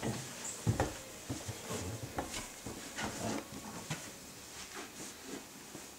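A toddler crawling on wooden stairs, her hands, knees and feet knocking and patting irregularly on the treads.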